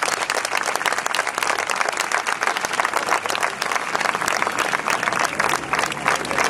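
Audience applauding: many hands clapping in dense, continuous applause.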